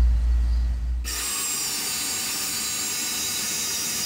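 A low rumble for the first second, then a Bauer portable band saw starts suddenly about a second in and runs steadily with a high hiss and whine, its blade set on a steel rod held in a vise.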